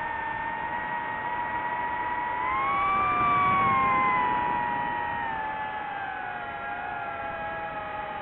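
DJI FPV drone's motors and propellers whining as several pitched tones together. About two and a half seconds in they rise in pitch and grow louder, then slide back down over the next few seconds.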